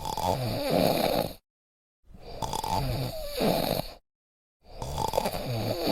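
Snoring, three long snores about two seconds apart, each cutting off abruptly into dead silence.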